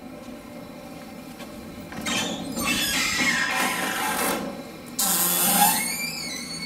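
Screen door hinges squeaking as the door is swung open: two long, wavering squeals, one starting about two seconds in and a second about five seconds in.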